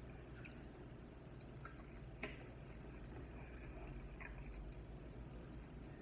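Person chewing hot chicken wings, with wet mouth smacks and a few soft clicks, the sharpest about two seconds in, over a faint steady low hum.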